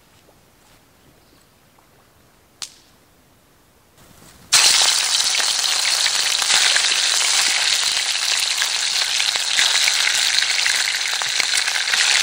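Fish pieces frying in hot oil in a pan: a loud, steady sizzle that starts suddenly about a third of the way in and cuts off abruptly near the end. Before it there is only faint background sound and a single sharp click.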